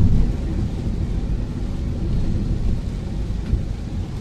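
Steady low rumble of a Tata Altroz cruising on a wet highway, heard inside the cabin: engine and tyre noise on the wet road.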